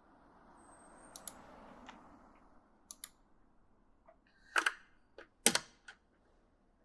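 Mechanical gaming keyboard keys clacking in a handful of separate, irregular keystrokes, the loudest about four and a half and five and a half seconds in, over a faint rustling noise that swells and fades in the first two seconds.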